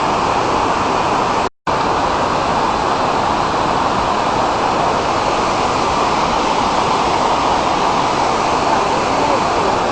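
Large waterfall rushing: a loud, steady wall of water noise. The sound cuts out for an instant about a second and a half in.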